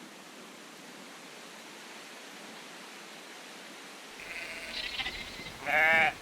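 Low background hiss, then near the end one short, loud bleat from a sheep or goat.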